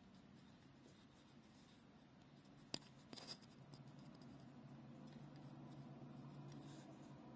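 Near silence: faint room tone with a low steady hum, broken by one sharp click nearly three seconds in and a brief faint scratch just after.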